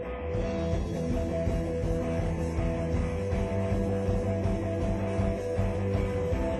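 Rock music led by electric guitar, with the bass and fuller band coming in about half a second in.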